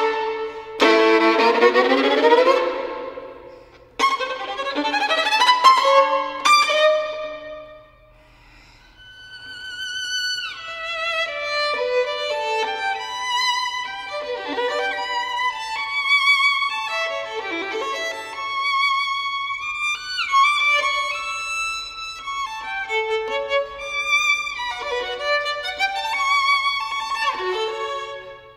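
Solo violin playing: loud chords sliding upward that break off abruptly about four seconds in, another rising passage, and a short lull about eight seconds in. Then comes a flowing melody of shorter notes with vibrato.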